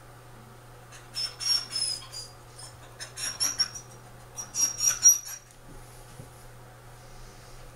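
Electric dog clippers humming steadily, with three bursts of high-pitched squeaking and rasping between about one and five and a half seconds in as the blade is pushed into the dog's matted coat.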